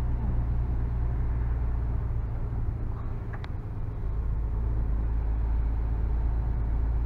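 Truck engine and drivetrain droning steadily inside the cab while creeping through a parking area; the drone eases briefly a few seconds in, then picks up again.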